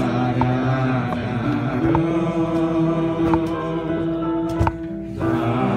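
A man singing a slow Hasidic melody into a handheld microphone, drawing out long held notes that step slowly from pitch to pitch.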